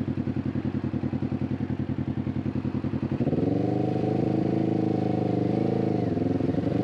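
Sport motorcycle engine at low speed in traffic. It pulses quickly at first, then about three seconds in the throttle opens and it smooths into a steady, higher running note, which dips briefly in pitch about six seconds in.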